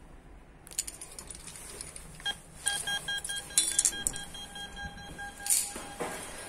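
VIZIT entrance intercom panel: a few clicks, then a steady, rapidly pulsed beeping tone for about three and a half seconds, signalling that the door lock is released. Over it come clicks and rattles of the metal entrance door being handled and pulled open near the end.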